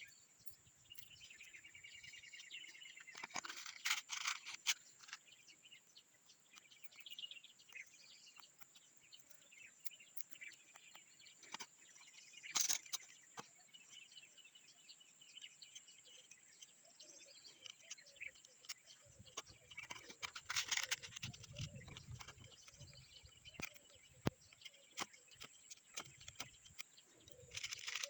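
Faint bird chirps with a rapid trill near the start, over a steady high-pitched whine, broken by a few sharp clicks and knocks.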